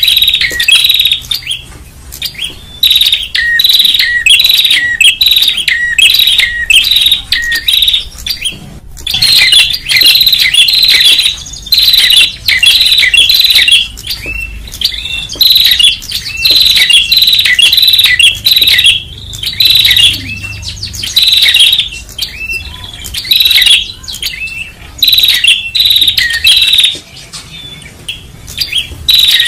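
Prenjak songbirds calling loudly and without let-up in quick, sharp chattering notes, several a second, with one brief pause about nine seconds in. The calls are a lure recording made to draw prenjak in.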